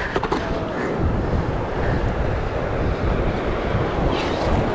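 Wind buffeting the microphone over the wash of surf breaking on the beach, with a couple of brief knocks just after the start.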